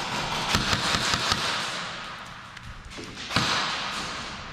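Airsoft skirmish noise: a quick run of sharp taps in the first second and a half and a louder knock a little over three seconds in, typical of airsoft rifle shots and BBs striking a hand-held shield and plywood walls, over a steady hiss.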